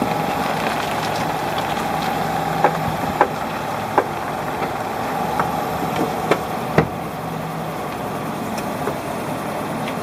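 2016 Nissan Rogue's left front wheel area clicking and creaking while the wheel is turned at low speed: a string of sharp clicks at uneven intervals over steady tyre and engine noise. The owner calls it an abnormal noise.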